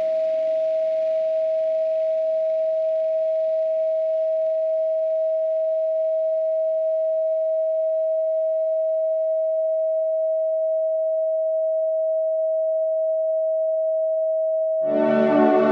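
A steady pure sine tone at 639 Hz, held without change. Soft ambient music fades out beneath it over the first several seconds. Near the end a thick ambient synth chord comes in abruptly and swells louder.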